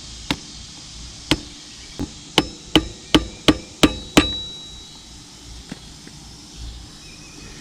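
Sharp metal taps on a new motorcycle drive chain's master link as it is driven into place: nine blows that come faster and faster, the last one ringing briefly.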